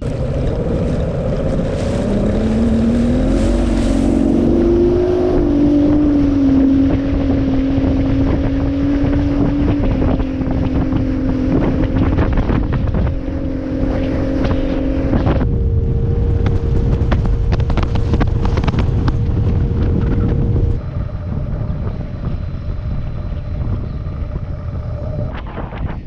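Outboard motor of a Tracker bass boat running across the water, with wind on the microphone. The engine pitch climbs over the first few seconds as it speeds up, then holds steady, shifts abruptly about two-thirds of the way through, and eases off near the end.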